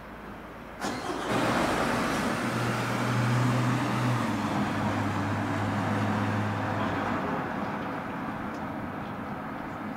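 A motor vehicle passing by. Its engine hum comes in suddenly, drops in pitch partway through and then fades away.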